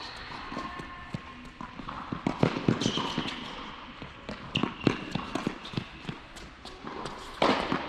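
Tennis rally on an indoor hard court: sharp pops of racket strings hitting the ball and ball bounces, the loudest about two and a half seconds in, near five seconds and near the end, mixed with the players' running footsteps and a few short squeaks.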